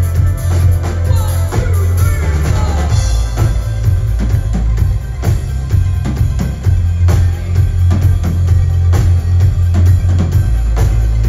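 A synth-pop band playing live and loud: a heavy synthesizer bass line under a steady drum beat with keyboard parts on top.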